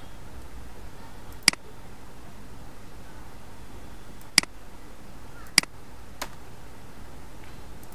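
Computer mouse clicking: four sharp single clicks spread over a few seconds, the last one weaker, over steady low background noise.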